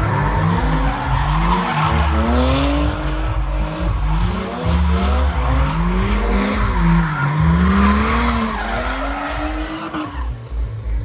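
Škoda Felicia pick-up drift car with a diesel engine, revving up and falling back over and over, about once a second, as it drifts, with tyres skidding and squealing throughout. The engine eases off near the end.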